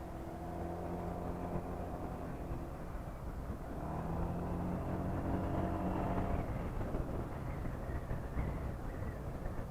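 Honda PCX scooter's single-cylinder engine running on the move in traffic, with road and wind noise. An engine note rises about three and a half seconds in, holds, and gives way to rougher road noise after about six and a half seconds.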